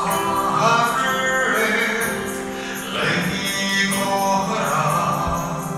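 A man singing a Mizo gospel song over a steady instrumental backing, amplified through a church sound system.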